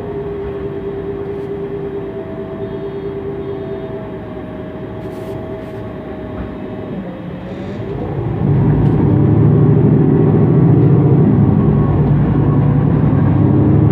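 MAN NG 273 T4 articulated city bus with an LPG engine: a steady whine over the running engine, which dips about seven seconds in. A second or so later the engine is opened up and its low rumble becomes much louder as the bus accelerates.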